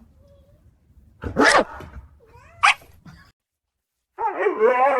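A short sharp animal call about one and a half seconds in, then a brief high rising squeak. After a moment of silence, a cat starts a long, wavering meow near the end.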